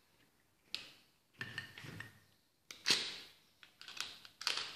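Metal starter-motor parts and a screwdriver being handled, knocking and clinking against each other and the table, with a short scrape about a second and a half in and the sharpest knock about three seconds in.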